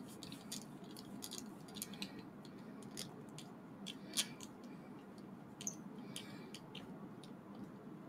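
Small metal parts of a T-800 model kit's skeleton hand clicking as its jointed fingers are handled and fitted: irregular light clicks and ticks, with one sharper click about four seconds in.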